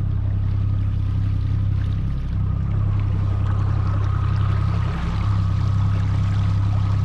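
Small boat's outboard motor running at a steady speed, with water rushing along the hull as the boat moves.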